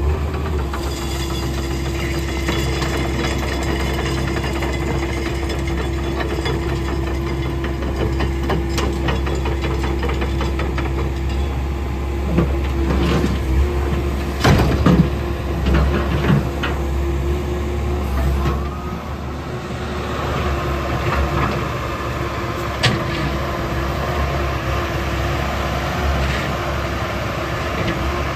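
Komatsu PC70 compact excavator's diesel engine running steadily with a low rumble and steady hum, while the machine works its boom and tracks. A cluster of metal clanks and knocks comes about halfway through, with another single knock later.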